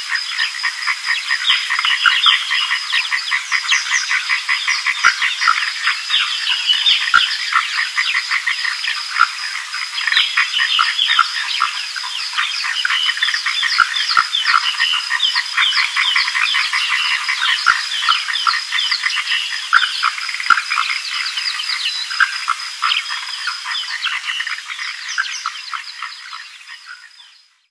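Chorus of frogs croaking, many rapid calls overlapping, with a thin steady high tone above them. It fades out over the last couple of seconds.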